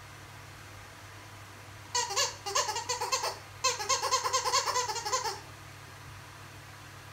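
Squeaky dog toy squeezed over and over, giving two fast runs of high squeaks about two seconds in, with a short break between them.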